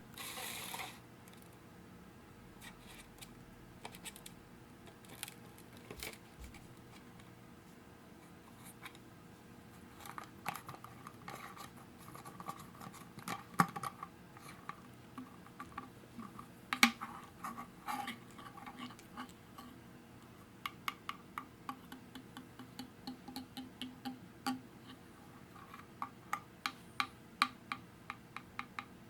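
Fingertips and nails tapping on plastic bottles and bottle caps: scattered single taps at first, then quick runs of light taps, a few a second, through the last part. A brief rustle sounds at the very start.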